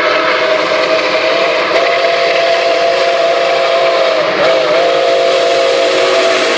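Nickel Plate Road 765 steam locomotive blowing one long, loud blast on its chime steam whistle as it approaches: several tones sounding together as one chord. The pitch sags briefly about two-thirds of the way through.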